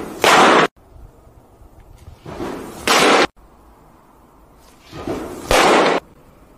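Hard-thrown baseball hissing in and smacking into a leather catcher's mitt, three times about two and a half seconds apart. Each pitch is a short rising whoosh, then a very loud crack that echoes briefly and cuts off sharply.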